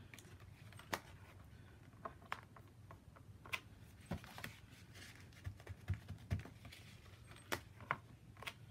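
Faint, scattered clicks and taps from a MISTI stamp-positioning tool being handled: its hinged clear plastic lid, carrying an inked stamp, is swung shut over the card and pressed down by hand.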